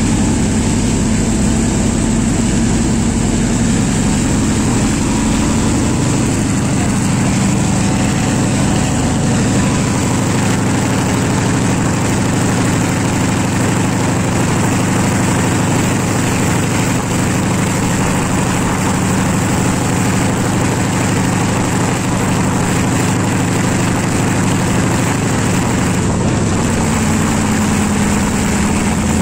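Class M2c diesel-electric locomotive's engine running steadily, heard from the cab doorway, over the noise of the moving train. The engine note sits a little lower through the middle and rises again near the end.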